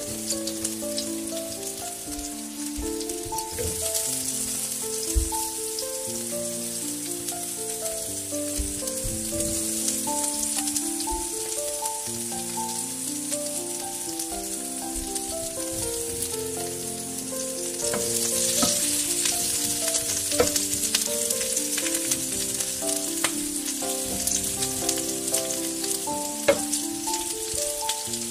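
Spices, onions and potatoes frying in oil in a wok: a steady sizzle that swells about two-thirds of the way through, with scattered clicks of a wooden spatula stirring. A light instrumental melody plays throughout.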